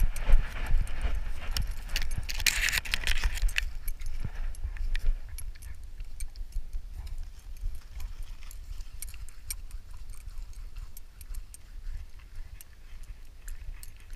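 Jangling and clicking of a chest-mounted action camera and its loose harness on a moving dog, over heavy low thumps from the dog's movement. A louder rustling burst comes about two to three seconds in, then lighter scattered clicks as the dog moves more slowly through grass.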